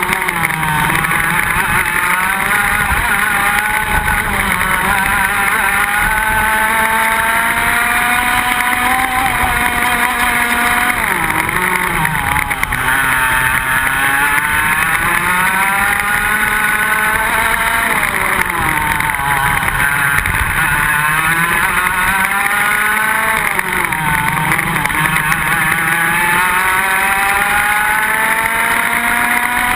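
Iame X30 125 cc single-cylinder two-stroke kart engines at racing speed, heard onboard, the revs falling sharply into corners and climbing again on the straights several times.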